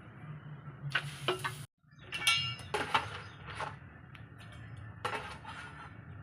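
Kitchen utensils and cookware clinking and knocking against pots and dishes, a handful of separate clinks, one with a short metallic ring a little over two seconds in. The sound cuts out completely for a moment just before that.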